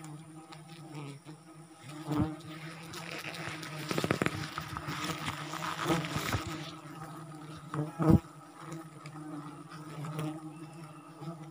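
Wild giant honeybees (Apis dorsata) from a sialang tree nest buzzing steadily around the tree. A louder rustling rush comes in the middle, and a few sharp knocks, the loudest about eight seconds in.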